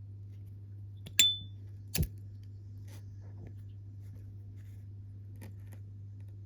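A single sharp metallic click with a brief high ringing tone about a second in, typical of an S.T. Dupont Ligne 2 lighter's lid being flicked open, followed by a duller knock about a second later and a few faint ticks.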